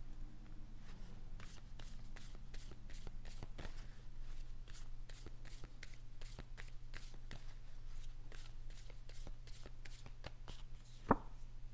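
A deck of oracle cards shuffled by hand: a steady run of quick, soft card flicks, a few a second.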